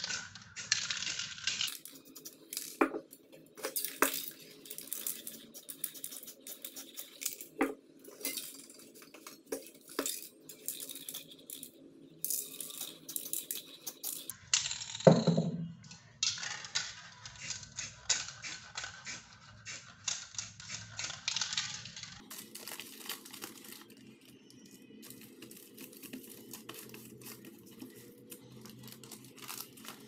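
Aerosol spray-paint cans in use: short hisses of spray and clicks and metallic clatter of the cans, in several quick cuts. Near the end, a plastic wrapper crinkles as it is pressed onto the wet paint.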